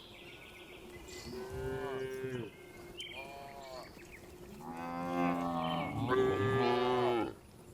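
Cows mooing: a run of about four drawn-out moos, each up to a second or so long, the last two the loudest.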